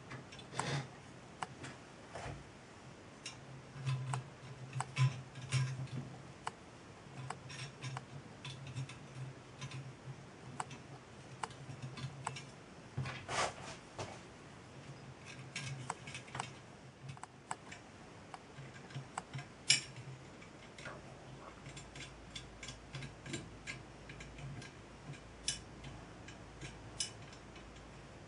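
Small brass gauge fittings and a glass sight tube being handled and fitted onto a copper model boiler: irregular light metallic clicks and taps, with a faint low hum behind.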